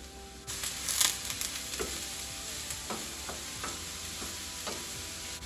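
Chopped onions sizzling in canola oil in a frying pan. The sizzle starts suddenly about half a second in and then holds steady. A wooden spatula scrapes and taps the pan several times as the onions are stirred.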